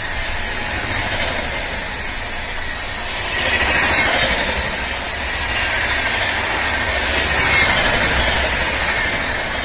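Indian Railways LHB express coaches passing at about 130 km/h: a loud, continuous rumble of steel wheels on rail with a rushing hiss of air. It swells about four seconds in and again near the end.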